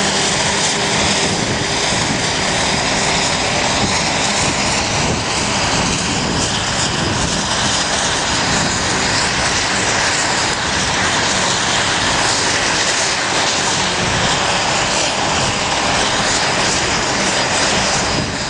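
Claas Jaguar self-propelled forage harvester running hard, a steady loud mix of engine and chopping-and-blowing noise.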